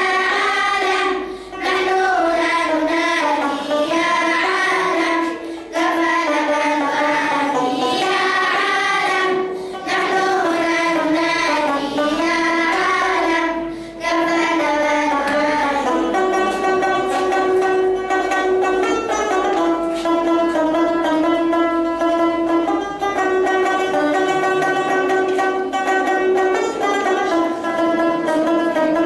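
Children's choir singing a song in Arabic in unison, accompanied by plucked string instruments, a banjo among them. About 16 seconds in, the singing gives way to a passage played by the strings.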